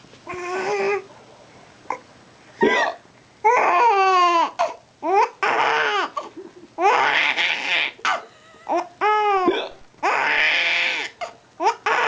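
A baby laughing and babbling in a run of high-pitched squeals and breathy bursts of laughter, some of them gliding down in pitch. About a quarter of the way in there is one short sharp sound.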